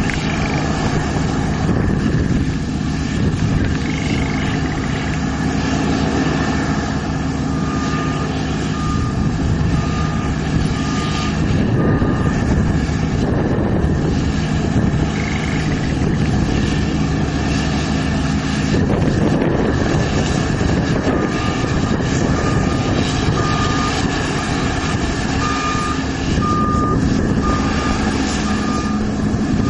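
New Holland CSX7050 combine harvester running under load while cutting grain, a steady engine and threshing drone with a constant hum. A short electronic beep repeats in two spells, a little more than once a second.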